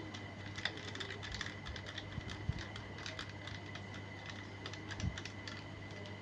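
Small screwdriver fastening the screws that hold a 2.5-inch SSD in a laptop drive bracket: irregular light clicks and ticks of metal and plastic, over a steady low electrical hum.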